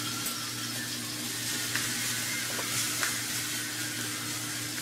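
Diced chicken and onion sizzling in a frying pan, with a few light clicks as the mixture is stirred against the pan.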